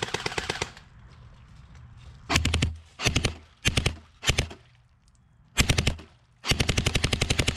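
Airsoft gun firing in rapid full-auto bursts of quick, evenly spaced shots. A burst runs until just under a second in, then five short bursts follow, and a longer burst of over a second comes near the end.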